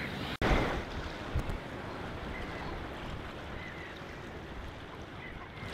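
Brent geese calling as a flock in the first instant, cut off by a brief dropout. Then wind rumbling on the microphone, with a few faint goose calls scattered through it.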